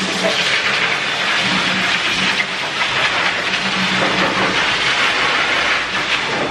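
Dog grooming force dryer blowing air through its hose onto a wet dog's coat: a loud, steady rush of air over a motor hum.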